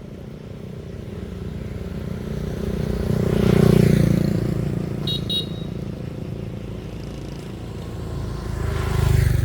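Motor vehicle engines on a road: a steady low rumble that swells twice, as if vehicles pass, once about a third of the way in and again near the end. Two short high beeps sound in the middle.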